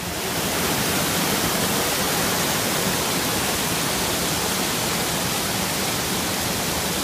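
Muddy stormwater flood runoff rushing across a road, a steady dense rushing noise that sets in at once and holds without a break.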